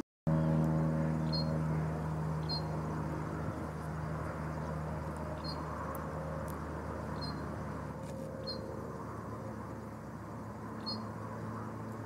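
A steady low engine drone with a hum, fading over the first few seconds, over open-air background noise. A short high bird chirp sounds about six times, every second or two.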